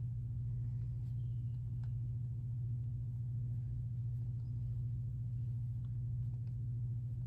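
A steady low hum, with a few faint soft ticks over it.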